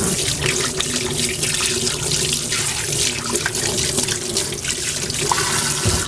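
Kitchen tap running into a sink, with water splashing over hands being rinsed under it; the flow stops near the end.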